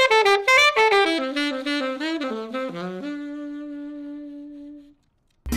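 Alto saxophone played solo: a quick run of short notes stepping downward, ending on a long held low note that fades out and stops about five seconds in.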